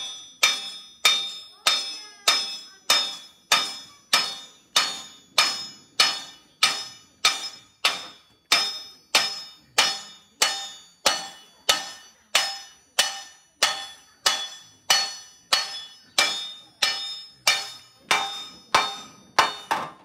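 Hand hammer striking a copper sheet laid over a metal bar, an even beat of about two blows a second, each blow ringing metallically and dying away before the next. This is the copper being hand-forged into shape.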